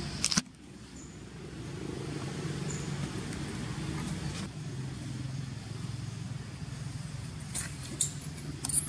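Low, steady drone of a motor vehicle engine running nearby, swelling and easing slightly. A sharp click comes about a quarter second in, and a few short high squeaks come near the end.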